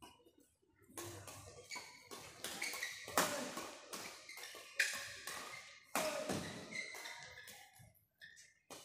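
Badminton doubles rally: racquets strike a shuttlecock about five times, one sharp hit every one to two seconds, each with a short echo in a large hall.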